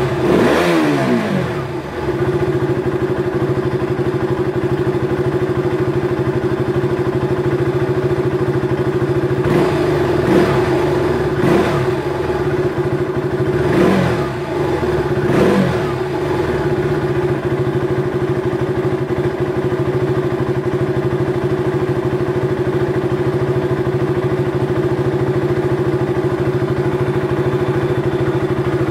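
KTM Duke 200's single-cylinder engine idling steadily in neutral. It is blipped briefly a few times in the first half, each rev rising and falling back to idle.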